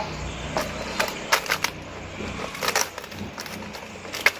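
Rustling and crackling of banana leaves being handled, with irregular short clicks and knocks as a steel plate is set down on the leaf parcel.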